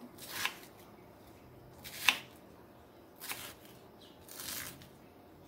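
Kitchen knife slicing through onion on a wooden cutting board: four separate cuts, the one about two seconds in the sharpest and loudest.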